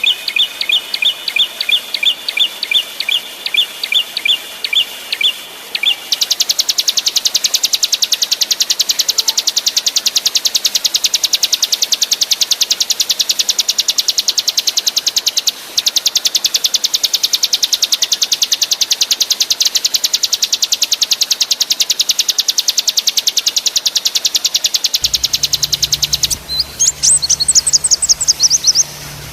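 Small songbird song for bird training: about six seconds of evenly repeated high chirps, then a very fast machine-gun rattle ('ngebren') held for about twenty seconds with a brief break, then a few quick high sweeping whistles near the end.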